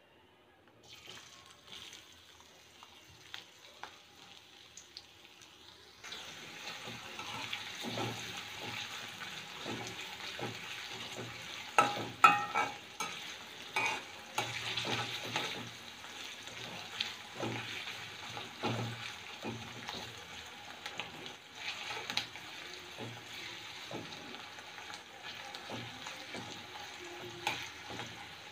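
Sliced onions sizzling in hot oil in a coated wok, stirred with a metal spatula that scrapes and knocks against the pan. Before that there is only a faint hiss from the heating oil; the sizzle starts suddenly about six seconds in, as the onions go into the oil.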